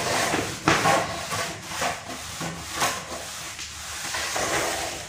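A hand float rubbing and scraping over fresh cement plaster along a beam's edge, a rough hiss in uneven strokes as the surface is smoothed to finish.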